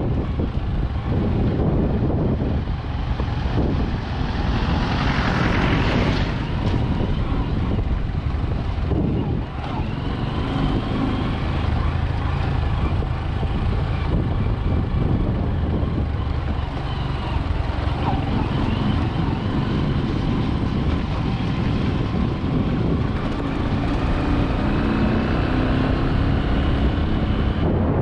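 A vehicle driving on a rough dirt road, with steady engine, tyre and wind noise on the microphone. There is a louder rush of noise about five seconds in.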